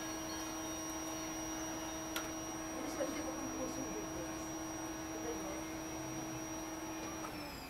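Steady electric hum of a small motor or appliance, with a high whine above it. Near the end the pitch slides down as it winds down.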